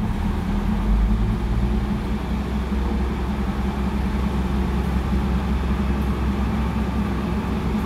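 Diesel railcar of a commuter train running under power as it pulls away from the platform: a deep, steady engine drone that grows louder about a second in.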